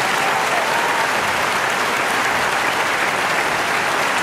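A crowd applauding steadily, a dense even clapping.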